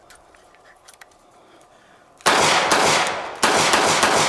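Two revolver shots about a second apart, each a sharp report followed by a long echo. The revolver is firing after being dunked in muddy water.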